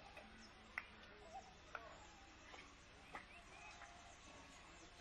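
Faint village ambience, close to silence, with a handful of sharp ticks, the loudest about a second in, and a few short faint chirps.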